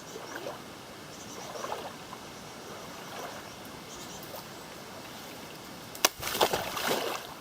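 Soft water swishing from wading through shin-deep creek water, then about six seconds in a single sharp crack of a tree branch snapping when grabbed for support, followed by about a second of rustling and splashing.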